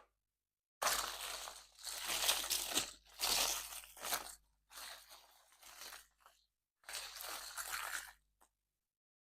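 Crinkly surprise-egg packaging being crumpled and torn open: a run of crinkling and crunching bursts from about a second in until near the end.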